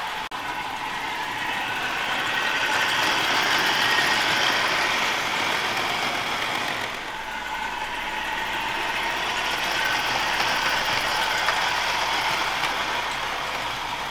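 OO gauge model train, a locomotive pulling a Hornby milk tanker wagon, running round the track with a steady mechanical running noise. It grows louder and fades twice as the train comes close and moves away.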